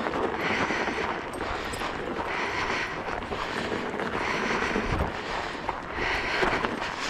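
Fat tyre of a Kickbike Fat Max kick scooter rolling over packed snow: a steady crunching hiss that swells about once a second.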